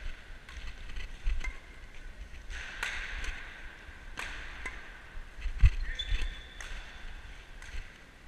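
Badminton play: rackets hitting the shuttlecock with sharp cracks at irregular intervals, one every second or so, with short squeaks of court shoes and footfalls on the hall floor. The strongest hit comes a little past halfway.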